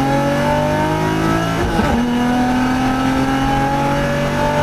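Infiniti G35's V6, with test pipes and a custom exhaust, pulling under acceleration: the engine note climbs steadily, breaks and drops slightly for a gear change about a second and a half in, then climbs again.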